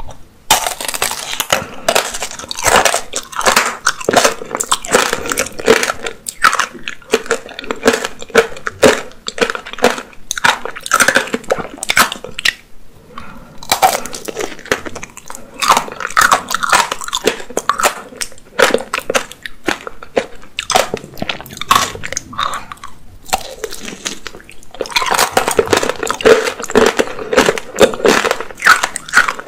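Close-miked biting and chewing of an apricot tanghulu: the hard sugar-candy shell cracking and crunching over the soft apricot in dense, crackling bites, with two brief pauses, near the middle and about three-quarters through.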